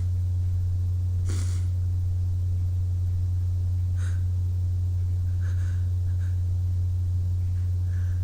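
A person's faint sniffs and breaths while working up to a sneeze: a sharp inhale about a second in, another near four seconds, then a few soft breaths. A steady low hum runs underneath.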